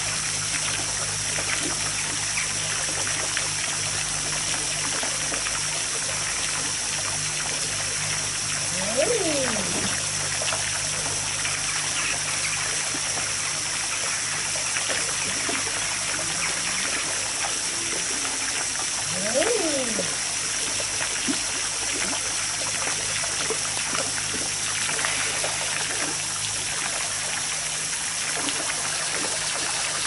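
Common eider drakes giving their cooing 'ah-ooo' call twice, about nine seconds in and again about ten seconds later. Each call is a pitch that rises and then falls over about a second. Behind it is a steady trickle of water.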